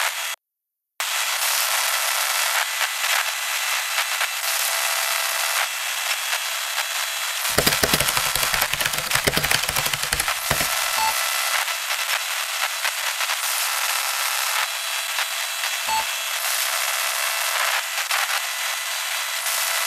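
Thin, hissy crackling noise like radio static, cutting out briefly near the start. For a few seconds in the middle it turns into heavier, fuller crackling and popping, then thins back to hiss.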